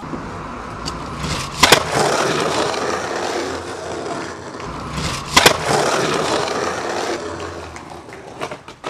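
Skateboard wheels rolling on rough asphalt, with a sharp double clack about a second and a half in as the board lands the drop-in from the wall, and another sharp clack of the board on the ground about five and a half seconds in. The rolling grows quieter near the end.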